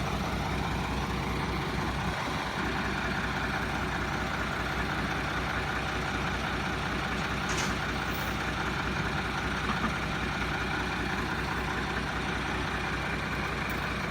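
Heavy truck engine running steadily with an even low drone, and a brief faint click about halfway through.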